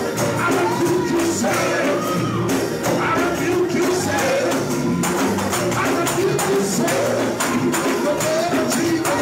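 Uptempo gospel music: many hand-held tambourines shaken and struck in a steady beat over choir and congregation singing.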